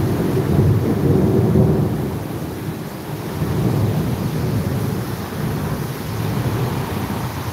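Rolling thunder rumbling over steady rainfall. The rumble eases briefly about three seconds in, then swells again.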